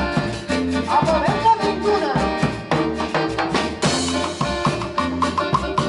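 Live Latin dance band playing an instrumental passage with a steady beat: drum kit, congas, a metal güiro scraping and electric bass. A cymbal crash comes about four seconds in.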